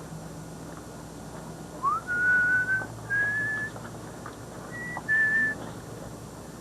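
A person whistling four clear notes: the first slides up into a long held note, then come a second held note, a short higher one and a last held note.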